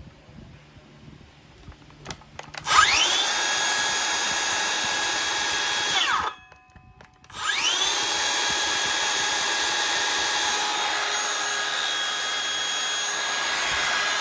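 Makita XSH04 18V brushless cordless circular saw run with no load. After a few handling clicks, the motor spins up with a rising whine about three seconds in, runs steadily, then winds down with a falling whine. About a second later it is triggered again and runs steadily.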